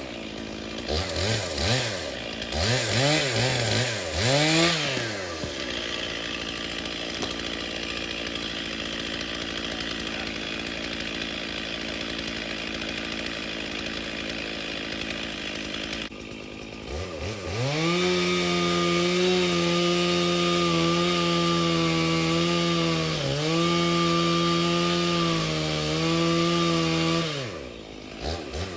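Two-stroke chainsaw revved in quick throttle blips, then idling, then held at full throttle, cutting into wood, with a brief sag in pitch partway through. It drops back and is blipped again near the end.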